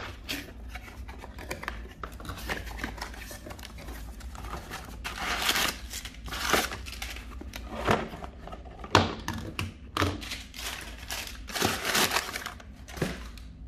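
A cardboard box being opened by hand: tape slit with a utility knife, cardboard flaps bent back, then crumpled brown packing paper crinkling and rustling as it is dug through, with sharp clicks and knocks of handling. The loudest crinkling comes in the second half.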